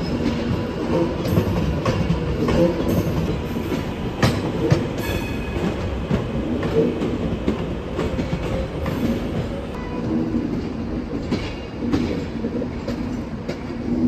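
Passenger train running over the pointwork and crossings, its wheels clattering in irregular clicks and knocks over a steady rumble.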